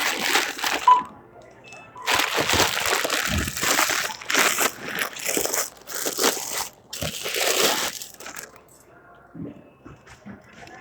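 Rustling and crinkling of bags or packaging being handled, a short burst at first and then a longer spell of steady rustling that stops about two seconds before the end.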